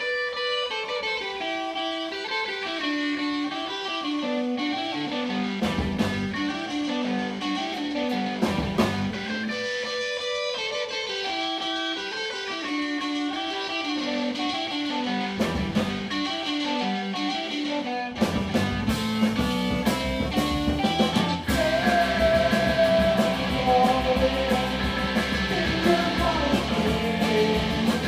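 Live rock band playing: electric guitar picks a repeating melodic line of single notes, and about 18 seconds in the rest of the band comes in fuller and louder, with bass and heavy percussive hits.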